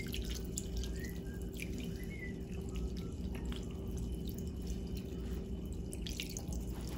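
Chicken broth poured from a carton in a thin stream into a skillet of curry chicken, trickling and dripping into the liquid in the pan.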